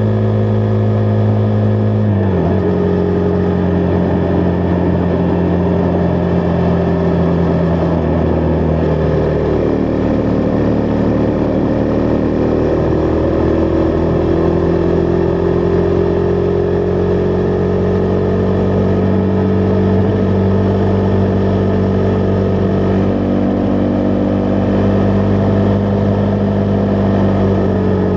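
Husqvarna Vitpilen 401's single-cylinder engine running under way, its pitch dropping sharply about two seconds in as in a gear change, then holding fairly steady with a brief dip and a slow rise, over a constant rush of wind and road noise.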